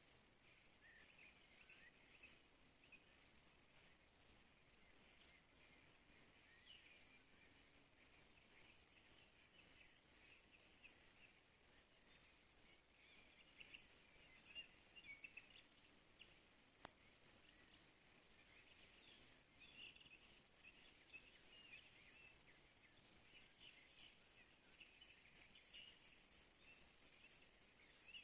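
Crickets chirping faintly, one giving an evenly repeated high chirp throughout, with scattered short calls around it. Near the end a second, higher and faster ticking trill joins in.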